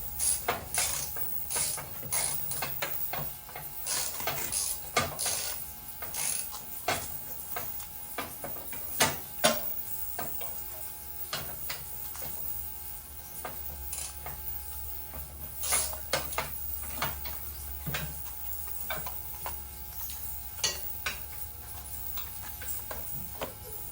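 Hand socket ratchet clicking in short, irregular runs as bolts are worked loose, with sharper metal clinks, the loudest two about nine seconds in.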